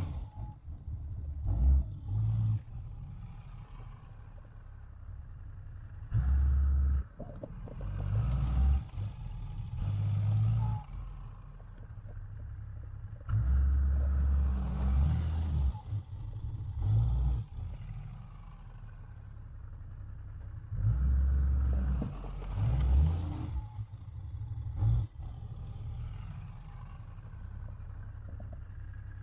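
Dodge Ram 2500 pickup's engine running while plowing snow, repeatedly swelling louder for a few seconds under load and easing back between pushes.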